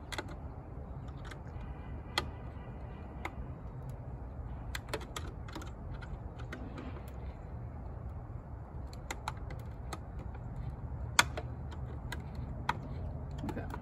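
Irregular small clicks and taps of a hand screwdriver working a screw into a satellite dish's LNB and plastic mounting bracket, with a couple of sharper knocks, over a low steady rumble.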